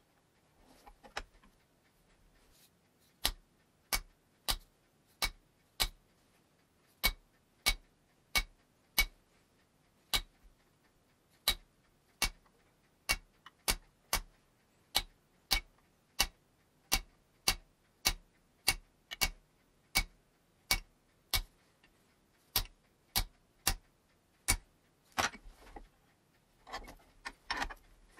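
A small hammer tapping a small chisel, punching a decorative line pattern into a small conical steel cap held in a vise. The taps are light, sharp and evenly spaced, about one and a half a second, beginning a few seconds in and stopping near the end, where some softer, irregular noise follows.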